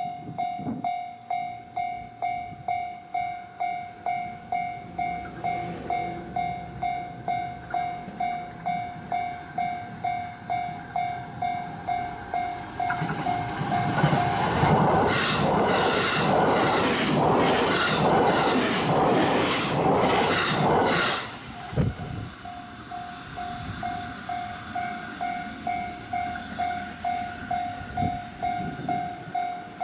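Level crossing warning bell dinging steadily about twice a second, while an electric commuter train passes for about eight seconds with rhythmic wheel clatter over rail joints and then stops abruptly as its last car goes by; the bell keeps ringing after the train has passed.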